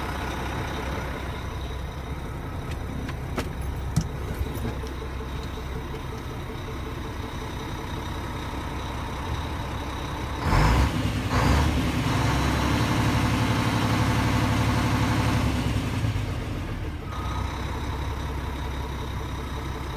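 Diesel engine of a 2002 Mack Quantum truck idling, heard from inside the cab. About halfway through there are two short loud bursts, then the engine runs louder for about four seconds before settling back to idle.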